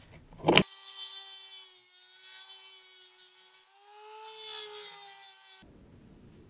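A sharp metal clack about half a second in, then a handheld rotary tool with a cutting disc runs at a high whine and grinds against steel as it cuts through a stuck screw in a lantern's switch. The grinding drops out briefly and comes back, then stops suddenly.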